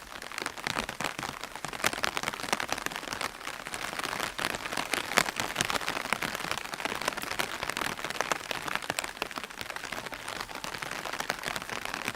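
Steady rain pattering on an open umbrella's fabric canopy, a dense patter of many small taps with an occasional louder drop, stopping abruptly at the end.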